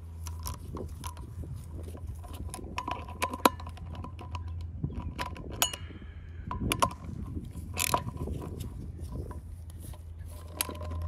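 Socket ratchet clicking in short runs, with sharp metallic clicks and knocks, as the bolts fastening a front brake rotor to its hub are tightened.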